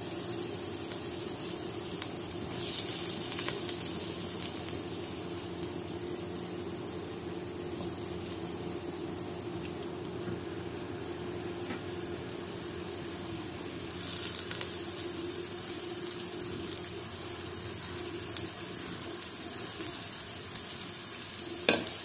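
Chopped onions frying in hot oil in a stainless steel pot, a steady sizzle that swells briefly about three seconds in and again around fourteen seconds in, as the onions sauté. Near the end a spoon knocks against the pot as stirring begins.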